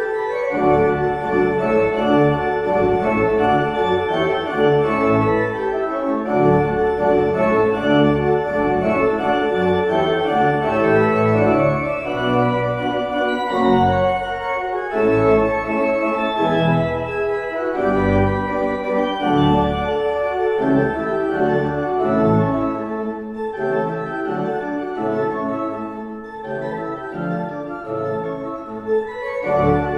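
Pipe organ playing full, sustained chords over a bass line that changes note every second or so, a little softer near the end.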